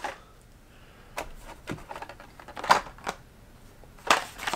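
A handful of short, sharp clicks and taps of plastic-blister card packages of die-cast toy cars being handled and pulled from a cardboard case.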